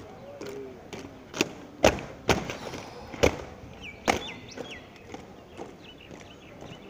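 Heavy boots stamping on pavement as soldiers march in a parade drill, about five sharp stamps between one and four seconds in.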